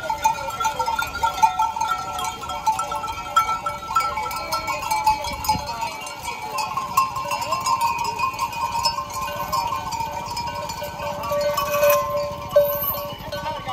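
Bells on a large passing herd of goats and sheep, many at once, clanking and ringing steadily, with the patter of many hooves on a gravel track.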